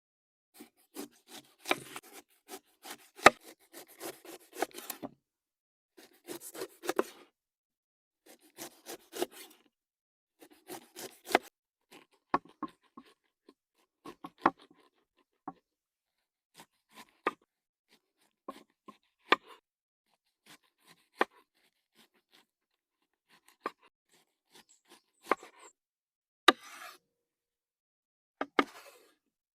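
Intermittent handling noises: sharp clicks and knocks mixed with short rustling scrapes, busier in the first dozen seconds and more spread out after.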